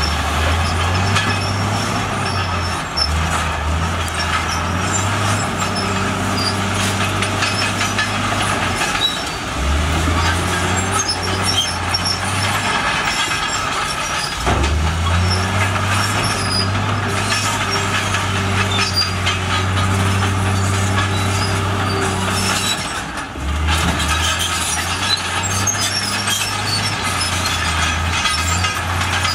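Heavy diesel earthmoving machinery, a bulldozer or rock dump truck, working under load. The engine's pitch drops and climbs again several times, every few seconds, under a continuous rattling clatter.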